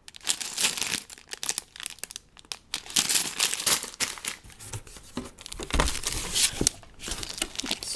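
Plastic bags of Lego pieces crinkling as they are handled and lifted out of the box, with a soft thud about six seconds in.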